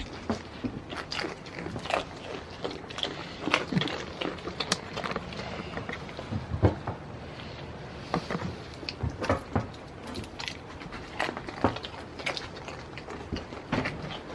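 A goat biting and chewing a hard treat taken from a hand, making irregular crunches and clicks.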